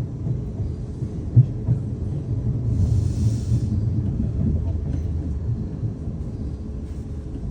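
Passenger train running, heard from inside the carriage: a steady low rumble, with a single sharp knock about a second and a half in and a brief hiss about three seconds in.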